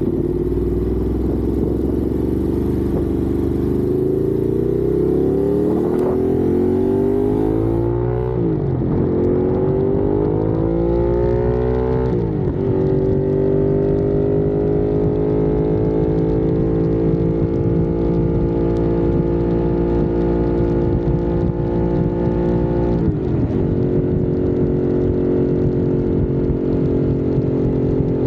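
Ducati motorcycle engine accelerating up through the gears while riding: its pitch climbs and drops sharply at each of three upshifts, then holds nearly steady in the last gear as it cruises.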